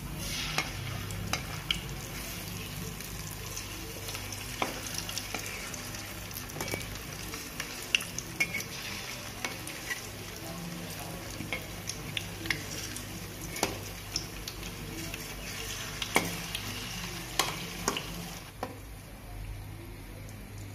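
Batter-coated susiyam dumplings deep-frying in hot oil in an aluminium kadai: a steady sizzle, with scattered clicks and scrapes of a perforated metal ladle turning them against the pan. The sizzle softens a little near the end.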